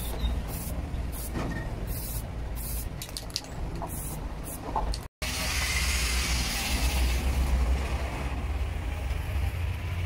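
Aerosol spray can sprayed in a quick series of short bursts over a finished machete. About five seconds in the sound cuts off abruptly and gives way to a steady hiss, all over a constant low rumble.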